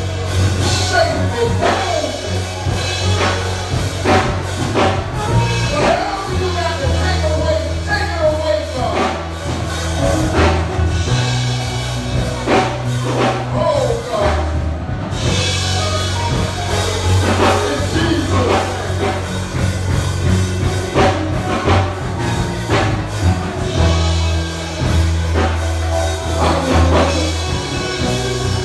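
Worship music with a band and drum kit, with singing over steady low notes that shift every second or two.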